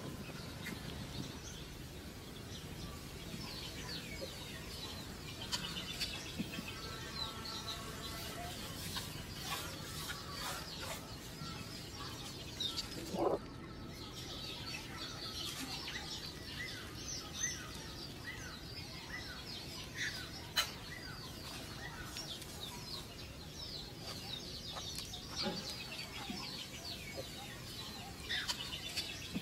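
Many short, high chirping calls repeated throughout, with a few longer calls mixed in.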